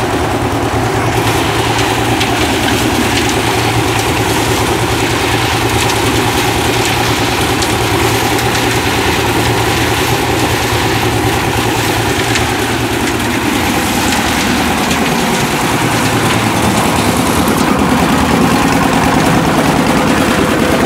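Portable concrete mixer running: its engine drones steadily while the drum turns a load of stones and cement, with a scatter of rattles from the aggregate inside. About two-thirds of the way through the low engine note changes and the sound grows a little louder as the drum is tipped to pour out the concrete.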